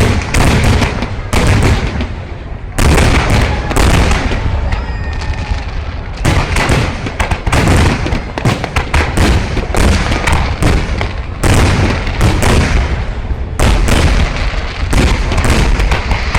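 Fireworks going off in a rapid barrage: loud bangs and booms, several a second, with a brief whistle from a rising shell about five seconds in.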